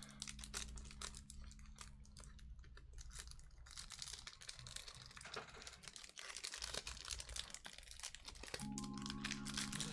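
Packaging being handled and opened: dense irregular crinkling, crackling and tearing of wrapper material. Low sustained music tones sound under it at the start and come back near the end.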